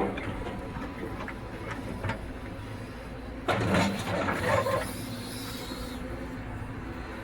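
Heavy construction machinery running steadily at a work site, a low diesel engine rumble with scattered small clanks. About three and a half seconds in, a louder noisy burst stands out for over a second.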